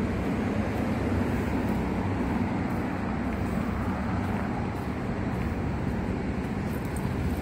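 Wind buffeting a handheld phone's microphone: a steady, fluttering low rumble with no distinct events.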